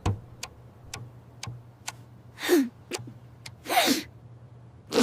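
A cartoon character's sneeze wind-up: two breathy gasps, falling in pitch, about two and a half and four seconds in. Short sharp ticks come roughly twice a second around them.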